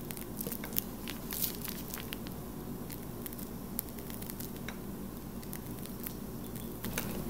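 A piping bag of whipped-cream icing being squeezed by hand, with soft squishing and scattered small crackles and clicks from the bag, over a low steady hum.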